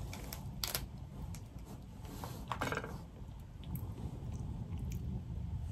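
Boiled crawfish being eaten by hand: shells cracking and peeling between the fingers, with close-up chewing and a few short sharp crackles.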